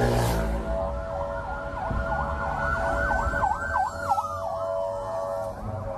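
Ambulance sirens wailing through traffic over vehicle engine rumble, with a fast rising-and-falling yelp in the middle.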